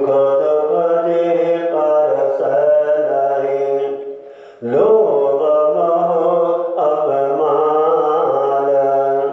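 Gurbani chanted in a steady, intoned recitation of the Akhand Path, on long held notes in two phrases with a short pause for breath about four and a half seconds in.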